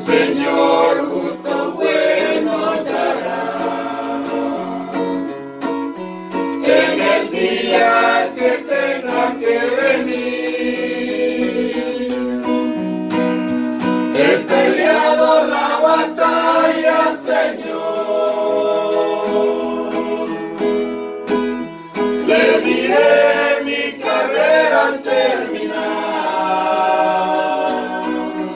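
Music: a group of voices singing a hymn over a strummed guitar accompaniment.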